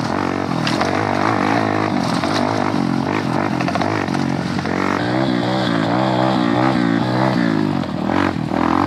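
Dirt bike engine running hard on an off-road trail, its revs rising and falling repeatedly as the rider works the throttle and gears.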